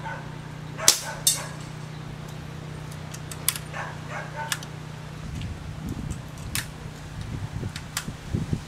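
Daisy PowerLine 1200 CO2 BB pistol firing at long range: two sharp pops close together about a second in, then several fainter clicks. Wind buffets the microphone in the second half over a steady low hum.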